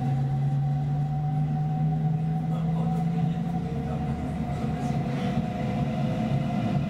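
Hamburg U-Bahn train running, heard from inside the passenger car: a steady motor hum with level tones over rumbling wheel and rail noise. A low tone in the hum drops away about halfway through.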